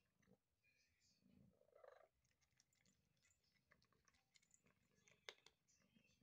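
Faint crunching of a kitten chewing dry kibble from a stainless steel bowl: a scatter of small irregular clicks, with one sharper click about five seconds in.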